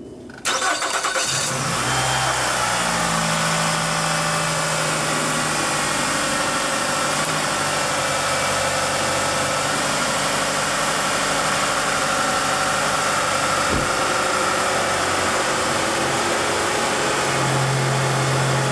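Nissan 2.5-litre four-cylinder engine cranking about half a second in, catching, and settling into a steady idle. The new serpentine belt runs on its pulleys without squealing. A single sharp click comes about 14 seconds in, and a deeper hum joins near the end.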